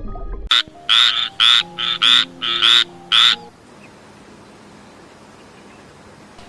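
An animal calling in a quick series of about eight short, loud, high-pitched calls over roughly three seconds, followed by a faint steady hiss.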